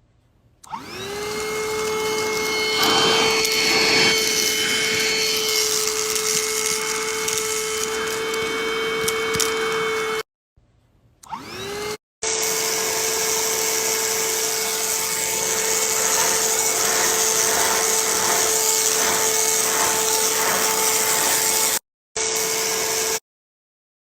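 Promark household vacuum cleaner running: the motor spins up to a steady high whine over a rushing suction noise. It starts up twice and breaks off sharply a few times.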